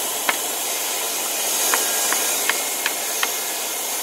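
Corded circular saw running steady as it cuts through an old wooden board, with a high whine over the blade noise. About seven light, irregular hammer taps on wood sound over it.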